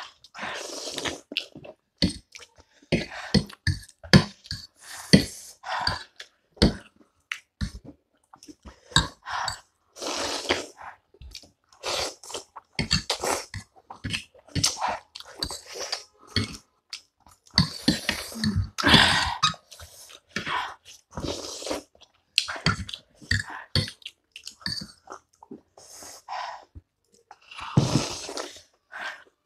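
Instant ramen noodles being slurped and chewed by two people: repeated long slurps, each about a second, between wet smacking chews.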